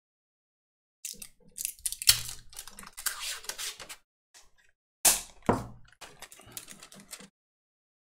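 Irregular clicks, taps and rustling of small handling work, most likely Kapton tape being pulled off and pressed down to hold a logic board on a preheater plate. Two louder rasping pulls come about two and five seconds in, and the noise stops a little after seven seconds.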